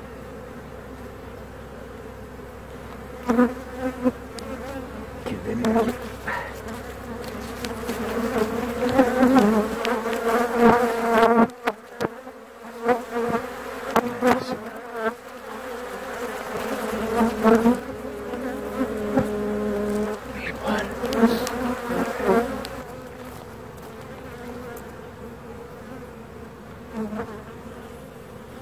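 Honeybees buzzing around an open hive: a steady hum, with single bees flying close by in louder buzzes that rise and fall in pitch, busiest from about three seconds in until past twenty seconds. A few light knocks as the wooden frames are handled.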